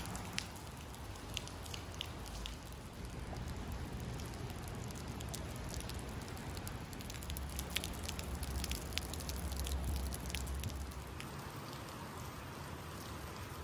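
Rain falling on wet pavement and puddles: a steady hiss of rain with many sharp individual drop hits, and a low rumble underneath.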